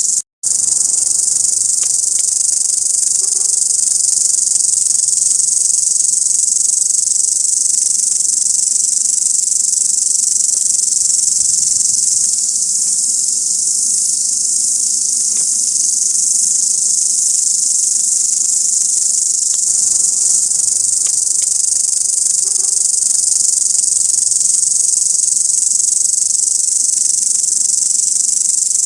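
Grasshoppers stridulating: a steady, high-pitched buzzing chorus, with a brief dropout just after the start.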